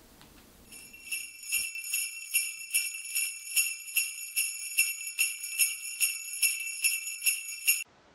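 Sleigh bells shaken in a steady rhythm, about two or three shakes a second, starting about a second in and cutting off suddenly near the end.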